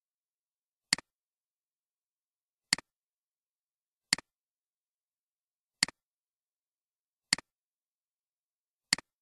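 Computer mouse clicks, as a screen recorder's added click sound: six identical sharp clicks about every second and a half, each a press with a softer release tick right behind it, in dead digital silence.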